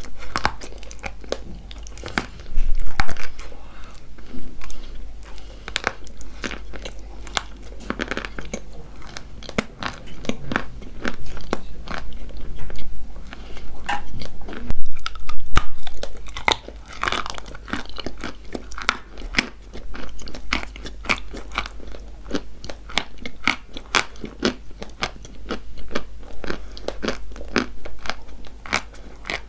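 Close-miked biting and chewing of chalk coated in kaolin clay paste: a steady run of sharp crunches, with louder bites about 3 seconds and 15 seconds in.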